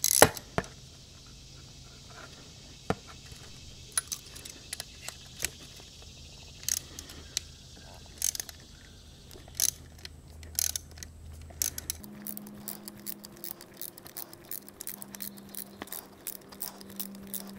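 Hand ratchet with a Torx bit backing out the centre bolt of an AC compressor clutch hub: scattered metal clinks and clicks, then from about two-thirds in a quick run of ratchet pawl clicks.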